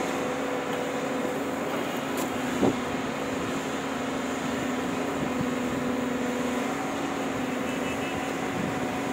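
JCB tracked excavator's diesel engine running steadily under load as it digs, a constant drone with a single sharp knock about two and a half seconds in.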